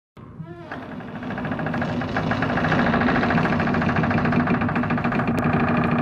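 Horror sound effect: a rapid buzzing rattle over a low steady drone, opening with a brief wavering tone and swelling louder over the first few seconds.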